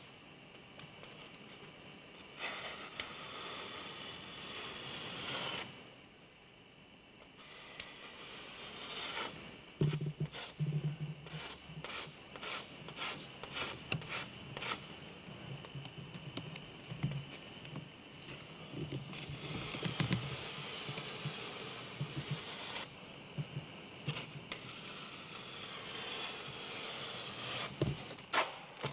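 Long-handled drawing tool scraping and rubbing across a large upright panel in strokes lasting a few seconds each. In the middle comes a run of quick taps and knocks as the tip strikes and jabs at the surface.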